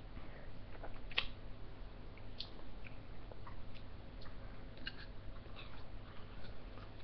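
Faint mouth noises of people eating ice lollies: scattered small clicks and smacks, the clearest about a second in, over a low steady hum.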